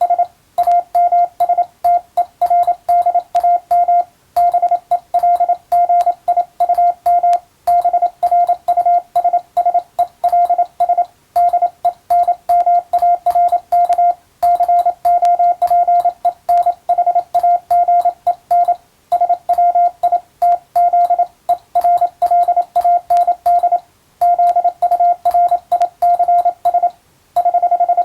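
Morse code (CW) practice signal: a single steady beep tone keyed rapidly on and off in dots and dashes, with short pauses between groups, sending English-language telegram practice text.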